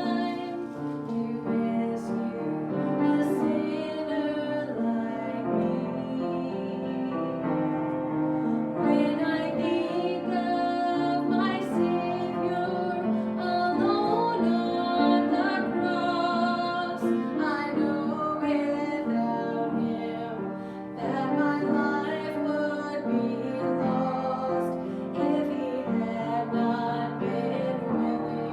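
Voices singing a church song with piano accompaniment.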